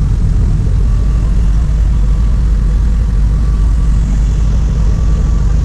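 Passenger train running slowly, a loud steady low rumble with no breaks.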